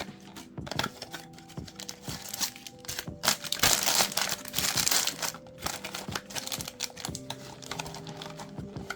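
Foil booster-pack wrappers crinkling and rustling as trading-card packs are handled and opened, loudest for a couple of seconds near the middle.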